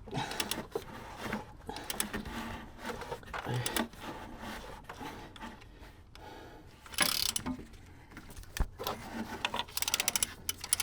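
Hand tools clicking and clunking as a VW 1.9 TDI diesel engine is turned over by hand, with a louder clatter about seven seconds in and a run of quick ratchet-like clicks near the end. The crank is hard to turn, which is put down to a cylinder coming up on compression and not to the newly fitted dual mass flywheel rubbing.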